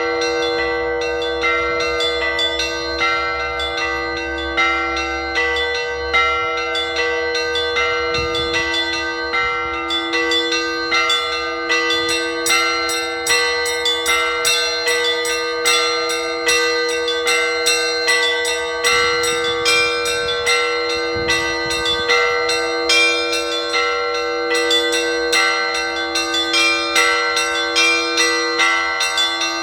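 A set of six Russian Orthodox church bells cast by the Vera foundry of Voronezh, rung in a festive Easter peal. A low bell is struck steadily about every second and a half beneath a quick, repeating pattern of smaller bells, and the pattern grows busier about twelve seconds in.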